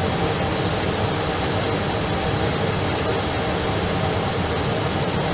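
Steady, even rushing noise of an Airbus airliner on approach, its engines and airflow heard from inside the aircraft.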